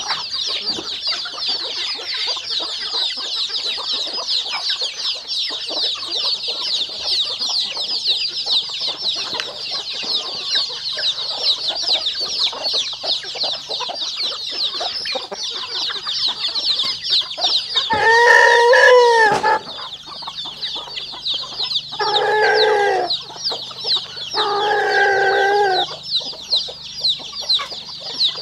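Free-ranging chickens at feeding time: a constant high peeping of many chicks, with a rooster crowing loudly about two-thirds of the way in and two more drawn-out calls from the flock a few seconds later.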